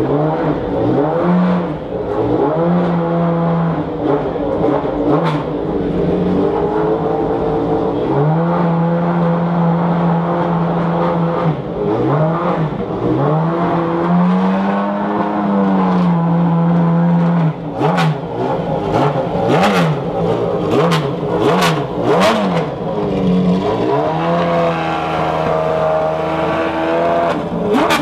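McLaren F1 GTR Longtail's BMW V12 race engine being revved repeatedly: several held revs, then a quick series of blips with sharp cracks from the exhaust in between, and a longer held rev near the end.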